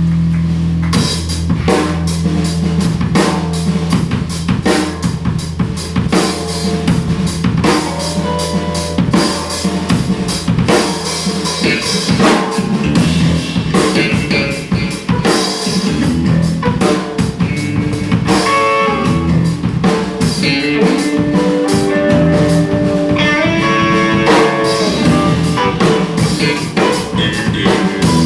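Live band playing a song: drum kit with bass drum and snare, bass and guitar, with a melodic guitar line in the second half.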